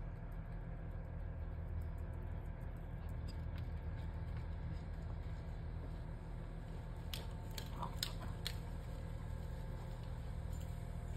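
Dog chewing and mouthing a squeaky toy: scattered faint clicks and crinkles, with a cluster of sharper clicks about seven to eight and a half seconds in, over a steady low rumble.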